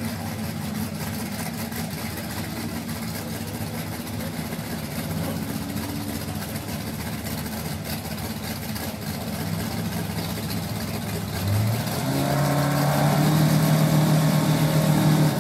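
Drag-race cars' engines idling at the start line; about 12 seconds in, one engine revs up sharply and holds high steady revs, louder than the idle, as it waits to launch.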